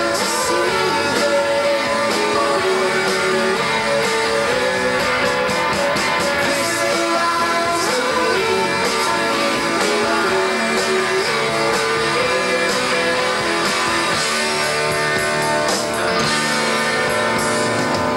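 Guitar-driven rock song with singing, played loud and steady throughout.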